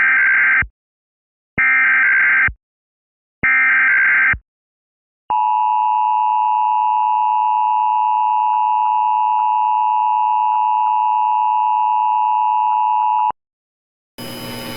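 Emergency Alert System tones: three short bursts of the SAME digital header screech. A steady two-tone EAS attention signal follows for about eight seconds, then cuts off abruptly. A hiss starts just before the end as the message audio begins.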